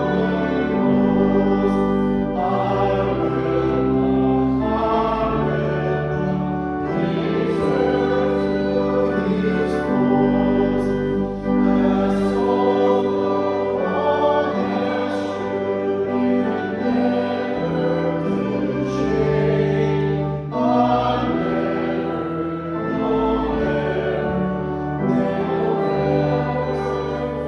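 Voices singing a hymn together, accompanied by a pipe or electronic church organ, in slow held chords that change every second or two.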